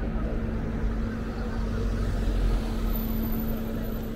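Steady low rumble of a running engine or motor, with a constant hum, over street noise.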